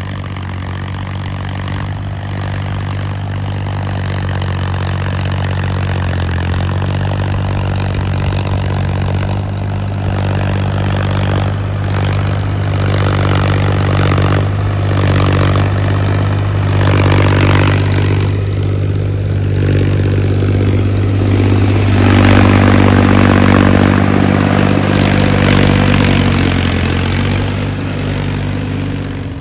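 Diesel tractor engine running steadily at a working pace, with a rattling, clattering noise over it that comes and goes and is loudest in the second half. The sound cuts off abruptly at the end.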